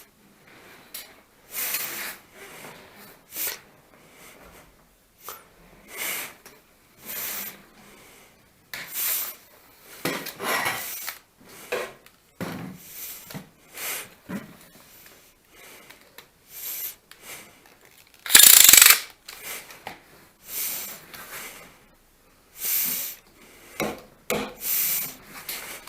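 Irregular rasping, scraping strokes of something dragged or rubbed over a hard surface, each lasting under a second, with a louder, longer scrape about two-thirds of the way through.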